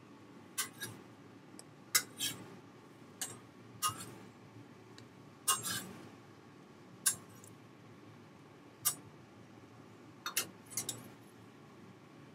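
Metal spatula clinking against the steel flat-top griddle and a metal serving tray as souffle pancakes are lifted off: about a dozen sharp, irregular clinks with a brief ring.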